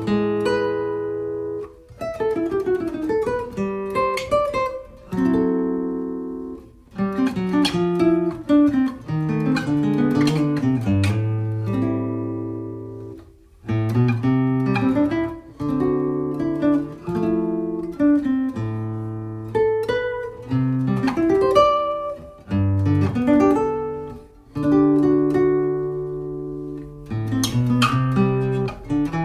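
Background music of a solo acoustic guitar, picked and strummed chords played in phrases with short pauses between them.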